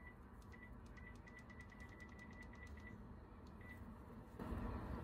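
Hill myna mimicking a microwave oven's keypad beeps: about a dozen short, faint, single-pitched beeps with a click on each, unevenly spaced like buttons being pressed, stopping about 3.7 s in.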